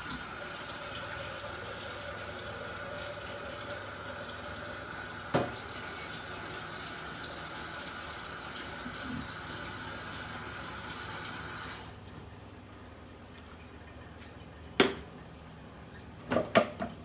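Tap water running steadily into a saucepan, filling it with water for boiling, then shutting off abruptly about twelve seconds in. A sharp clank follows a few seconds later, and a quick cluster of clanks comes near the end as the steel pot is set down on the hob.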